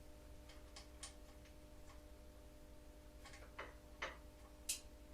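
Scattered light clicks and taps of metal tools and small parts being handled while a motorcycle is taken apart, about nine at uneven spacing, the sharpest near the end, over a faint steady hum.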